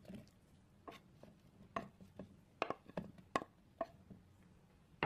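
Cut strawberry pieces dropping from a wooden board into a stainless-steel blender jar: a series of irregular soft knocks and taps as the fruit lands on the steel and on other pieces.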